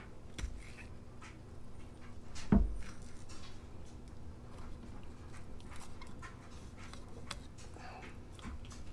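Faint handling sounds of a knife and hands filleting a bluegill: scattered small clicks and scrapes, with one louder knock about two and a half seconds in.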